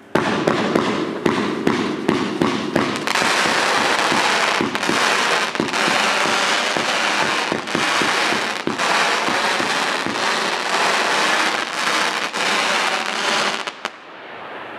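A 108-shot consumer firework cake, a battery of shot tubes and mines, firing in rapid succession. Sharp reports come close together at first, then merge into a dense continuous barrage that stops suddenly near the end.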